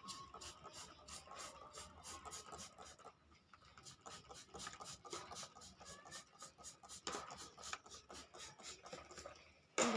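Quick, scratchy rubbing strokes, several a second, against a kitten's fur during flea treatment; the kitten gives one falling meow right at the end.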